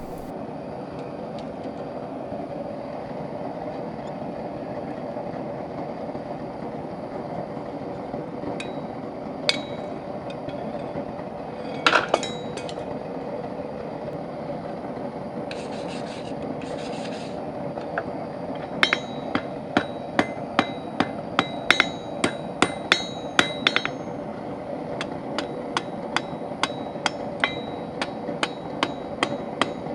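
Hand hammer forging steel bar stock on an anvil: a few single blows, then from about two-thirds of the way in a steady run of sharp strikes, nearly two a second, over a steady background hum.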